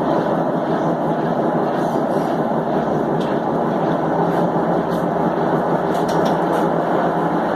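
Consul Maré 7.5 kg washing machine running its spin cycle with a loud, steady noise. The noise is a sign of a faulty part that is due to be replaced.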